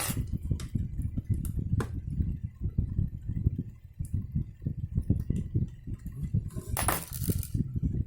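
Parts of a laser-printer toner cartridge being handled and worked on: a run of low knocks and bumps with a few sharp plastic clicks, and a short scraping rustle near the end.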